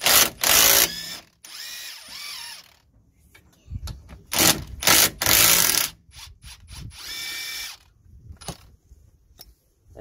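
Cordless impact wrench undoing the two 17 mm brake caliper guide pin bolts. There are two runs about four seconds apart, each a loud burst of the tool followed by a quieter whining spin.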